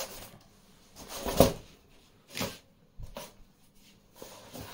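Aarmr Tornado Rage .177 break-barrel spring air rifle being broken open and loaded: a loud metallic clack about a second and a half in, then a few lighter clicks.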